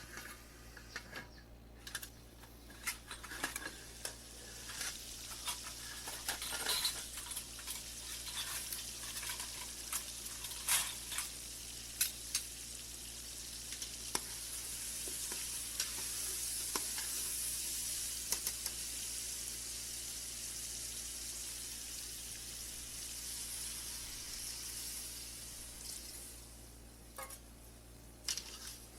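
Chicken pieces in tomato masala sizzling in a pan while a spoon stirs and knocks against the pan in sharp clicks. About halfway through, the sizzle swells into a steady hiss as half a cup of water goes into the hot pan, then eases off near the end.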